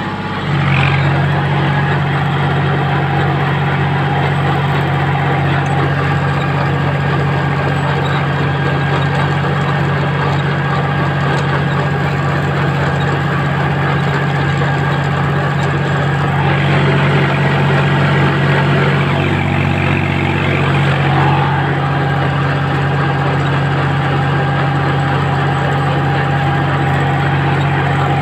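John Deere 5105 tractor's three-cylinder diesel engine running steadily under load, heard from the driver's seat, as it drives a rotavator tilling dry soil.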